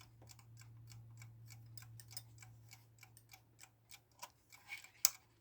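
Seven Star mechanical alarm clock ticking, even rapid ticks at about five a second, over a faint steady low hum, with a few louder clicks near the end.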